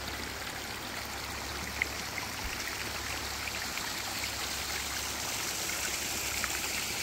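Steady rushing of running water, like a small creek or runoff trickling over rocks, growing a little louder toward the end, with one faint click about two seconds in.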